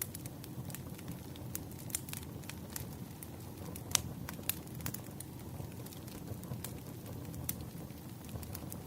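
Burning firewood crackling, a steady low rumble of flames with irregular sharp pops, the loudest a little before halfway through.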